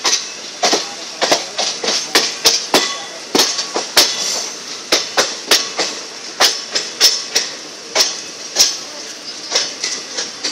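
Wheels of a moving passenger train clicking over the rail joints, heard from a coach window: a quick, irregular run of sharp clicks and knocks, about two to three a second, over a steady hiss.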